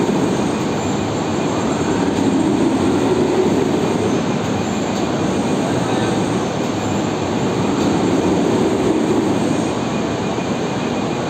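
Loud, steady mechanical rumble of heavy industrial machinery, swelling and easing every few seconds.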